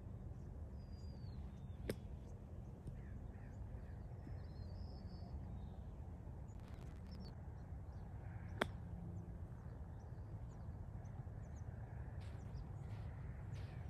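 A golf club striking through bunker sand: one faint sharp strike about two seconds in, then a single louder click later, over a steady low wind rumble with a few short bird chirps.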